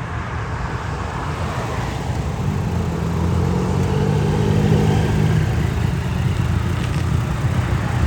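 Motor vehicle engine running over steady road traffic noise, its hum growing louder for a few seconds in the middle and then fading.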